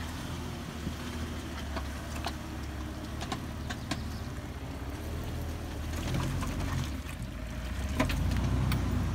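Jeep Wrangler engine running at low revs as it crawls through a rutted clay notch, with a few sharp clicks and knocks along the way. The engine comes up louder about eight seconds in.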